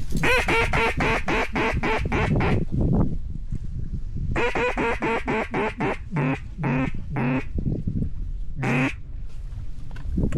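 Duck call blown in mallard-hen quacks: a fast run of about a dozen quacks, a second run about four seconds in, then slower, spaced quacks and a last one near the end, calling ducks back in. Low wind rumble underneath.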